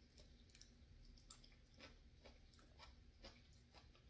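Faint chewing of a forkful of blue-dyed cucumber salad, with soft mouth clicks about every half second.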